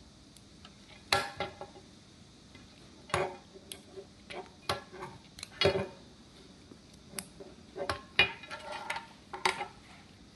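Irregular clicks and knocks of hard plastic and metal parts being handled as an air filter regulator and its pneumatic fittings and air pipe are connected, with four louder knocks among the lighter clicks.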